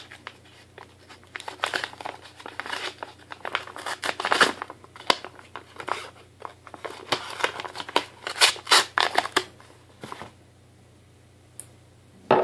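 A paper envelope being opened and handled: irregular bursts of paper ripping and rustling, stopping about two seconds before the end.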